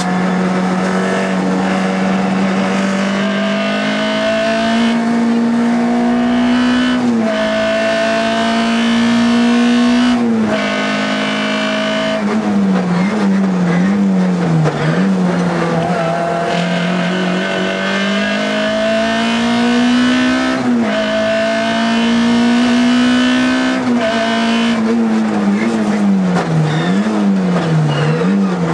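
Škoda Felicia Kit Car rally engine heard from inside the cabin, driven hard: the revs climb in long pulls broken by sudden drops at gear changes, and twice the pitch swings quickly up and down as the car slows for bends. Near the end the revs fall sharply under braking.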